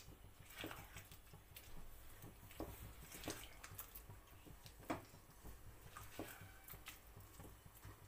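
Faint, irregular pops and ticks from masala cooking in a kadhai over a high gas flame, coming about once a second.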